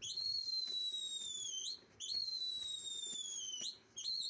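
A shrill whistle blown three times in a row, each blast lasting just under two seconds. Each blast rises sharply at the start, slides slowly down in pitch, then flicks up as it ends.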